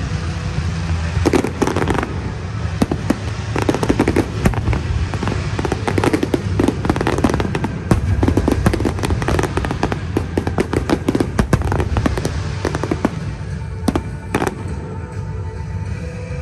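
Fireworks bursting overhead: a rapid, dense run of bangs and crackles that thins out near the end, with music playing underneath.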